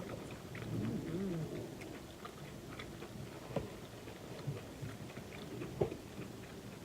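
Close-miked chewing and mouth sounds of a person eating, with a short hummed "mm" about a second in and a few small clicks and taps.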